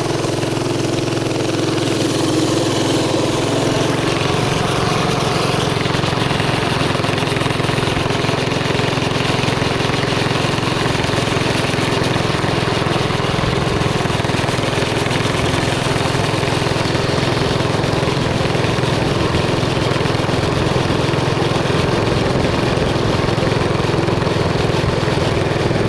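Mini bike's small engine running steadily while riding, at an even pace with no revving up or down.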